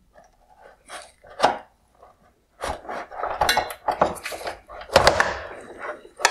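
Flathead screwdriver prying and scraping at the plastic upper projector mounting bracket inside an LED headlight housing. A few scattered clicks at first, then from about halfway a dense run of scrapes, clicks and plastic clatter.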